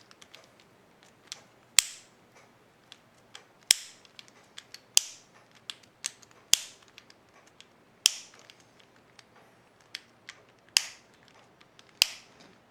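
Sharp clicks from an Abus Bordo 6100 folding combination lock worked by hand as its number dials are turned and its button pressed, felt for a dial dropping into its gate. About seven loud snaps come roughly every one and a half seconds, with fainter ticks between.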